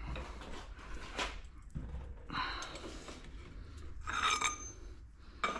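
Steel hand tools clinking and scraping as a breaker bar and socket work a loosened flywheel nut, with a few short knocks and one ringing metallic clink about four seconds in.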